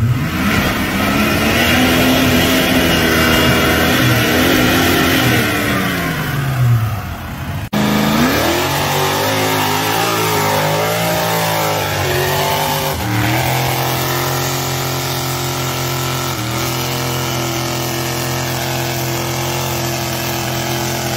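Truck engines revving hard as they power through deep mud. The engine pitch climbs and then falls over the first several seconds. After a sudden cut, another engine wavers up and down, then holds a steady high rev to the end.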